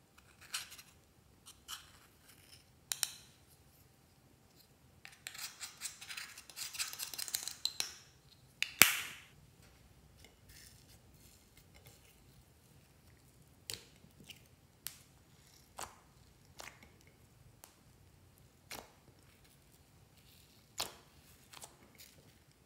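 A metal spatula scraping and crumbling pressed eyeshadow: a few crisp scrapes, then a fast crackle of scratching for a few seconds, ending in one sharp knock. After that, glossy slime being pressed and kneaded by hand in a glass dish gives scattered small clicks and pops.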